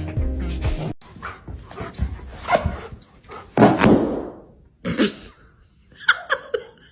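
A dog barking a few times, short separate sounds with pauses between them.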